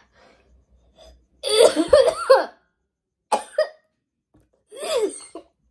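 A woman coughing in three bouts, the first about a second and a half in the longest and loudest, a reaction to the burning chili heat of the Jolochip she has eaten.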